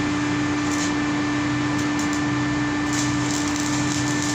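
Steady machinery hum and whoosh from mechanical-room equipment, with a constant low drone and a faint pulsing underneath, unchanging throughout.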